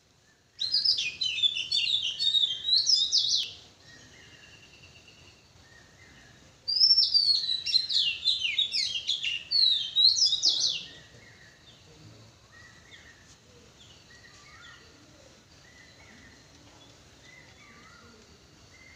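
Birds singing: two loud stretches of rapid chirping, trilling song, the first starting about half a second in and lasting about three seconds, the second from about seven to eleven seconds in. Fainter single bird calls continue after.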